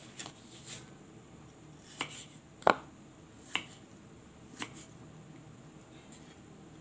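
Four sharp, irregular knocks of kitchen utensils, the loudest a little under three seconds in, over a faint steady background.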